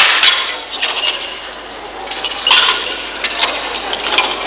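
Clattering and scraping of stage props being handled and shifted, with sharp knocks at the start and about two and a half seconds in.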